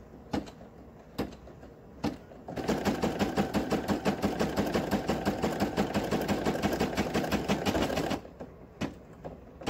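A few clicks, then the Brother PE800 embroidery machine starts stitching, a rapid, even run of needle strokes that goes on for about six seconds and stops abruptly. A couple of clicks follow.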